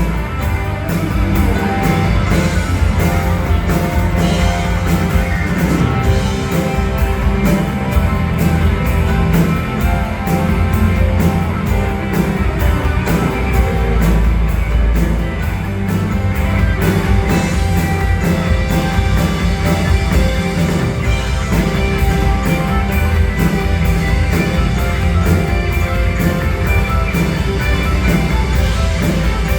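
Rock band playing live, with guitar over a steady drum beat.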